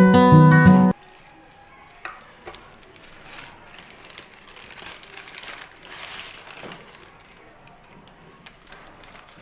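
Strummed acoustic guitar music that cuts off suddenly about a second in, followed by faint, scattered rustling noises.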